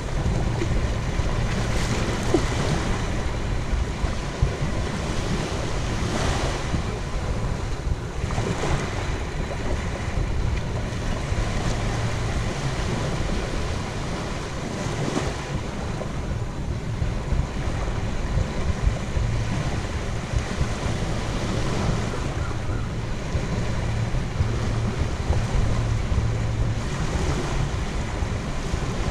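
Small waves breaking and washing up on a sandy beach, with wind rumbling on the microphone.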